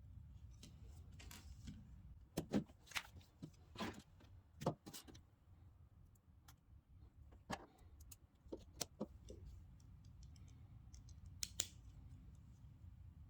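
Faint clicks and short rattles of small plastic LEGO pieces being handled and pressed together, in irregular clusters over a low steady hum.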